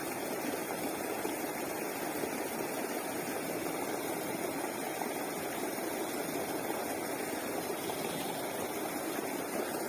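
Steady churning of water from a pond aerator (paddlewheel "turbine"), a continuous even rush with no breaks.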